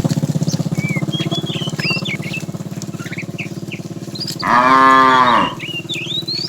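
Cows mooing: a long, low moo dies away over the first few seconds, then a louder moo rises and falls in pitch about four and a half seconds in. Small birds chirp throughout.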